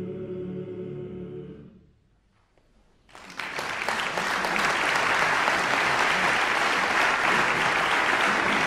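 An alpine male-voice choir holds a final sustained chord that fades away about two seconds in. After a second of silence, the audience breaks into applause that carries on steadily and is the loudest sound.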